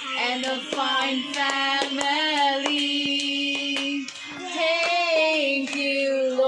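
Children and women singing a gospel song together, with hands clapping along to the beat.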